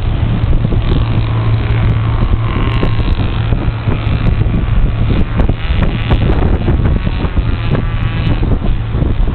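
Wind buffeting the microphone over the steady low drone of a pontoon boat's outboard engine under way, with irregular knocks of lake chop slapping the hull.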